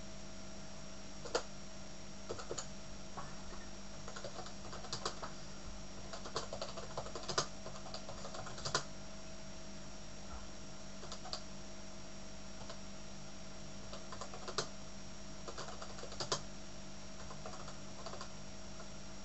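Typing on a computer keyboard in irregular bursts of key clicks with short pauses between, a few keys struck harder than the rest. A steady hum runs underneath.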